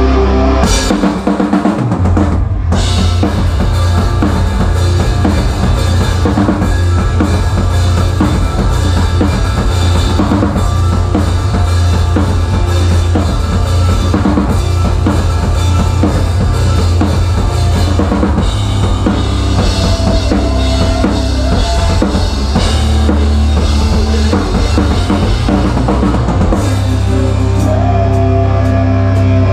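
Rock band playing live, heard close up at the drum kit: kick drum, snare and Zildjian cymbals loud over the rest of the band. The full band's low end comes in about two seconds in.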